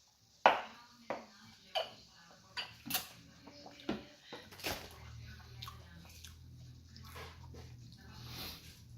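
Sharp clicks and knocks of food and packaging being handled while eating, one every half second to second through the first half. A low steady hum comes in about halfway.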